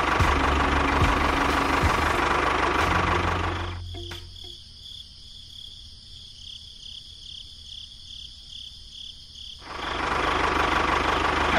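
Small tractor engine noise, running for about four seconds, then dropping away to a quiet stretch of regular high insect chirping, about three chirps a second; the engine noise comes back near the end.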